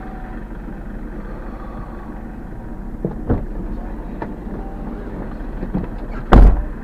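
A stationary car's engine idling with a steady low rumble. A few light clicks come about halfway through, and a single heavy thump comes near the end.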